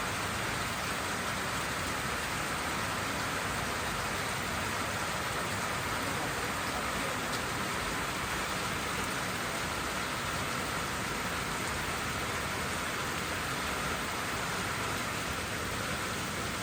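Steady rainfall, an even hiss with no single drop or thunderclap standing out.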